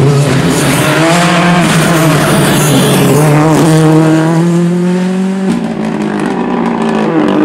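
Ford Fiesta R5 rally car's turbocharged four-cylinder engine at full throttle as the car passes and pulls away. The engine note climbs steadily, then drops sharply about five and a half seconds in.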